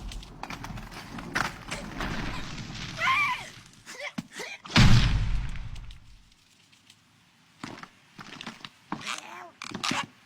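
Cartoon sound effects: a string of knocks and thuds with a loud low thump about five seconds in, and short squeaky warbling calls in between.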